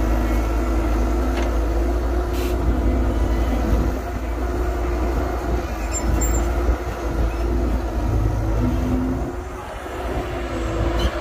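Heavy diesel engines of an excavator and dump truck running steadily under load, with a constant low rumble and a steady tone, easing briefly about nine and a half seconds in.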